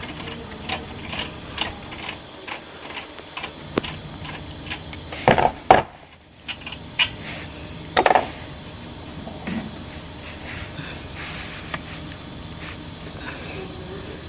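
Hand tools working on the mounting bolts of a truck's A/C condenser: scattered metallic clicks and ticks, with a few louder knocks about five to six seconds in and again about eight seconds in.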